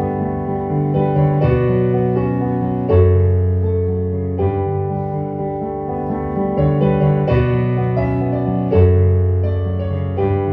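Solo piano music played on a digital stage piano: sustained chords over deep bass notes, a new chord struck about every one and a half seconds. The bass strikes are heavier about three seconds in and again near the end.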